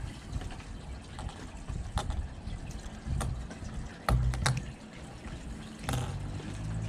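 Swimbait lures being handled and set down on a fabric surface: a few short knocks and clicks, the loudest just after four seconds, over a steady low rumble.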